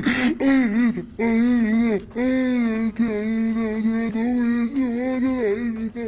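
A man crying as he speaks, his words drawn out into long, wavering, high-pitched sobbing wails broken by short pauses.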